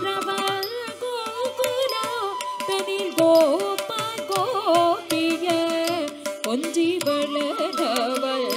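Live Carnatic music accompanying a Bharatanatyam shabdam: a woman singing a ragamalika melody with violin and flute, over mridangam strokes in misra chapu tala, a seven-beat cycle.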